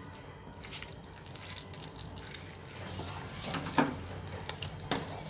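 A steel spoon stirring hot milk in a stainless steel pan as lemon juice curdles it, with liquid dripping and a few light knocks of the spoon against the pan. A low steady hum sits underneath.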